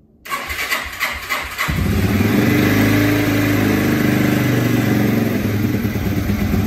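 1989 Yamaha TW200's single-cylinder four-stroke engine cranking for about a second and a half, then catching and settling into a steady idle on full choke: a complete cold start, the bike not having run that day.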